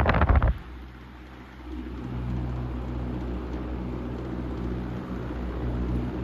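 Antique GE Vortalex 16-inch table fan running. Its air buffets the microphone until it cuts off about half a second in, then a steady motor hum with a whoosh of moving air settles in a second later.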